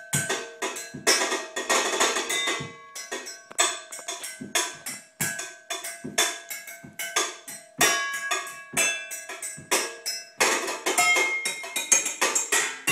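Butter knives drumming a fast rhythm on pots, pans and bowls: sharp metallic strikes, some ringing on with clear pitched tones.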